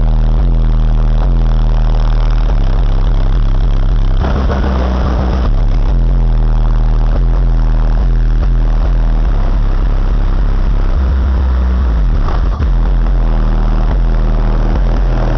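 Very loud bass music pounding from a car's two 12-inch Pioneer Premier TS-W3002SPL subwoofers, heard from outside at the rear hatch. The deep bass notes step from one pitch to another every second or so.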